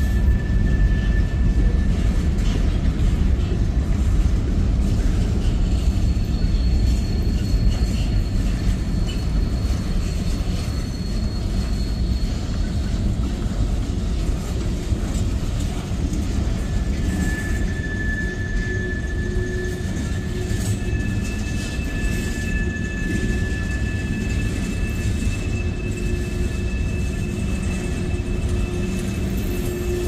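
Freight cars of a CSX manifest train rolling past: a steady low rumble of wheels on rail. Faint thin squeals come and go above it, the clearest starting about seventeen seconds in.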